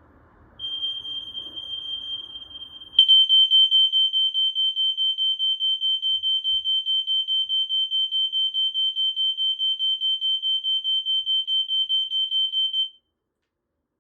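Smoke alarms sounding during a test: a shrill high beep pulsing rapidly, about five pulses a second. It jumps much louder about three seconds in and cuts off abruptly near the end.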